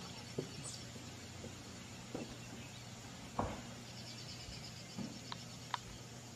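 Faint outdoor ambience with a small bird chirping in rapid repeated high notes, twice, and a few soft knocks.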